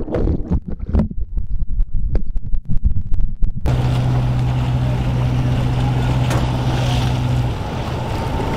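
First, irregular thumps and wind buffeting on the microphone. About four seconds in this cuts to a large motor yacht running at speed through choppy water: a steady rush of wind and water with a low engine hum, which drops out near the end.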